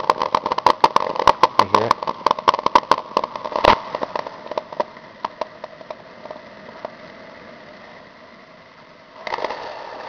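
Family Chef single-cup drip coffee maker sputtering and crackling as it pushes hot water and steam through at the end of its brew cycle, a rapid run of pops over a steady hum that thins out after about four seconds to a faint steady hiss. A burst of rustling handling noise near the end.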